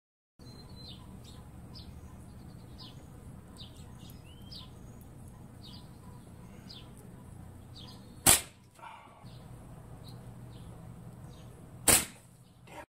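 Two sharp cracks of a slingshot firing leather ammo, about three and a half seconds apart, over a steady low background hum.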